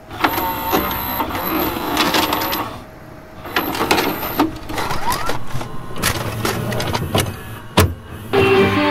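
VCR taking in and loading a VHS cassette: the transport mechanism clicks, clunks and whirs in two spells, with a thin high whine, a few separate clicks and one hard clunk near the end. Acoustic guitar music starts just before the end.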